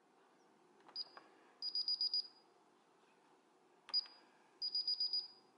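Electronic keypad beeps from a home alarm system, heard twice. Each time a key click with a short high beep comes first, and about half a second later a quick run of about six high beeps follows.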